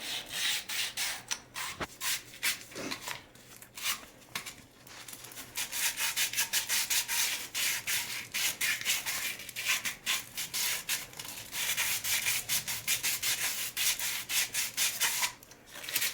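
Sandpaper rubbed by hand in rapid back-and-forth strokes, sanding a sticker off a pipe part to prepare it for a coupler. The strokes ease off briefly about four seconds in, then pick up again.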